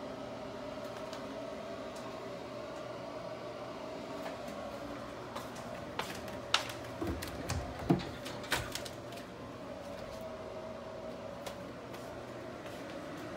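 Steady indoor hum with a faint tone in it, typical of an air-conditioning or ventilation fan. About halfway through comes a brief cluster of sharp clicks and low knocks.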